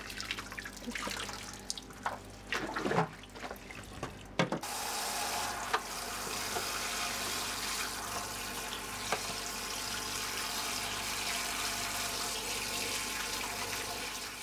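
Water splashing and sloshing in a plastic tub as gloved hands wash a bird specimen. About four and a half seconds in, a tap starts running and pours steadily onto the specimen in the tub, rinsing it.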